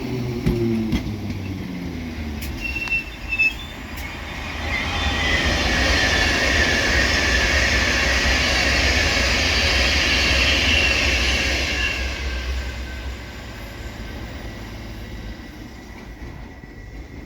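Bakerloo Line 1972 Stock tube train running: the whine of its DC traction motors falls away in the first couple of seconds, then a loud high wheel squeal rises over the rumble of the wheels for several seconds in the middle before the train's sound fades.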